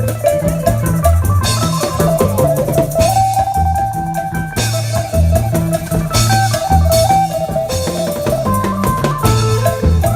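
Isan band music played live: a plucked phin melody over a drum kit with cymbals and a walking bass line, at a steady beat.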